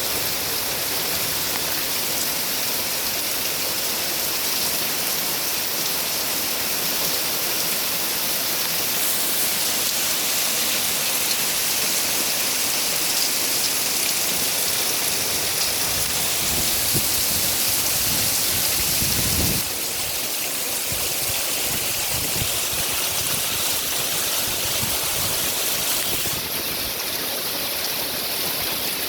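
Heavy rain pouring steadily, with low gusty rumbles of strong wind just past the middle; the sound changes abruptly about two-thirds of the way through.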